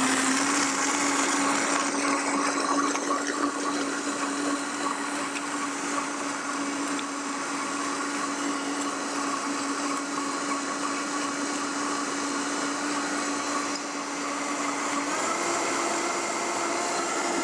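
Countertop blender running steadily, whizzing a smoothie of frozen pineapple, ice, almond milk and coconut water. About fifteen seconds in, the motor's hum steps up in pitch as the speed is raised.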